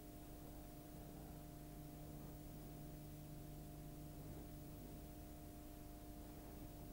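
Near silence: a faint steady hum with a low hiss underneath.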